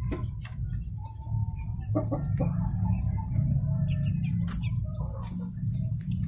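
Chickens making short, soft calls, over a steady low hum and scattered clicks and knocks.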